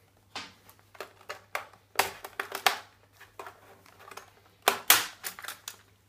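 Plastic snap clips of a Dell Inspiron 15R SE 7520 laptop's bottom access cover cracking and clicking as the panel is pried off by hand with some force. The clicks come in several bursts, the loudest about two seconds in and again about five seconds in.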